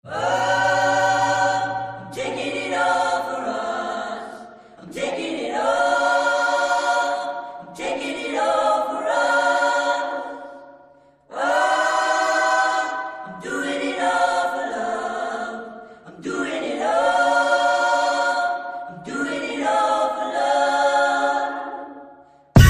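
Sped-up recording of a layered vocal choir singing sustained chords without accompaniment, in phrases of about two to three seconds separated by short breaths.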